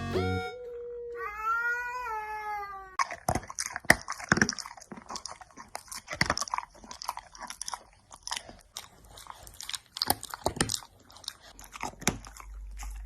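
A cat gives one long meow that rises and falls, then crunching, irregular chewing of something hard and dry goes on for about ten seconds.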